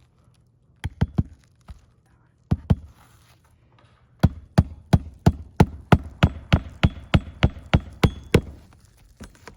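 Hammer blows on an asphalt shingle roof: a few scattered taps, then a steady run of about fourteen strikes at roughly three a second, each with a slight metallic ring.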